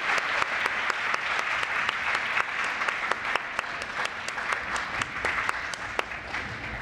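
Audience applauding, thinning out to scattered individual claps near the end.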